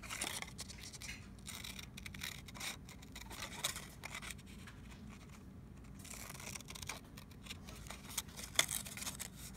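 Scissors cutting through a sheet of paper in short, irregular snips, one sharper snip near the end.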